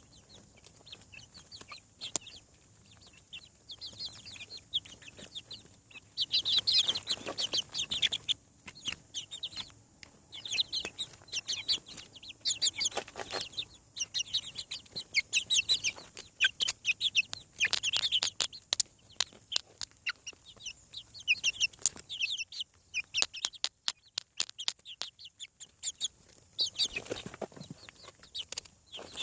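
Young chickens peeping and chirping, many short high calls in busy flurries that come and go, with scattered light ticks and taps among them.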